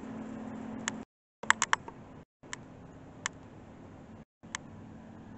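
Faint room noise with a low steady hum, broken by about eight sharp clicks at uneven intervals, three of them close together about a second and a half in. The sound cuts out to dead silence three times.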